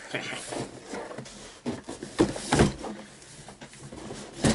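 A large cardboard shipping box being handled and set down: rustling and scraping of cardboard, a couple of dull thuds about two and a half seconds in, and a sharp knock near the end.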